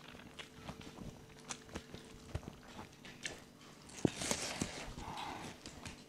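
People eating rice and chicken with their hands: scattered smacks and clicks of chewing and fingers in the food, with a brief burst of hiss about four seconds in.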